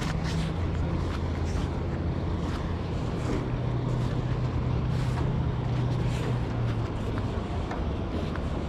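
Steady low hum of a running motor or engine, its pitch shifting slightly and easing off near the end, with faint scattered clicks.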